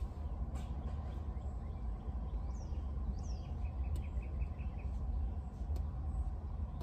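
Birds chirping outside over a steady low rumble: two quick downward-sweeping chirps about two and a half seconds in, then a fast run of about seven short notes.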